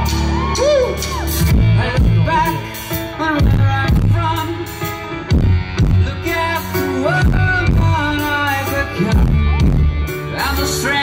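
Punk rock band playing live and loud: electric guitars, bass and drums with a singer's voice over them.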